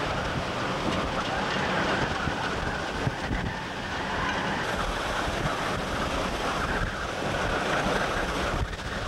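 Hurricane-force wind blowing hard across the camcorder microphone, with storm waves breaking over the marina docks and against moored boats.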